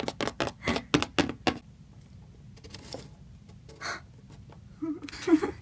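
Plastic Littlest Pet Shop figures tapped along a tabletop as they are moved by hand: a quick run of light clicks, about five a second, then a few scattered taps.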